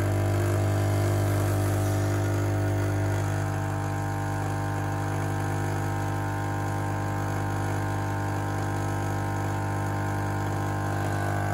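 Rancilio Silvia espresso machine's vibratory pump buzzing steadily while an espresso shot is being pulled.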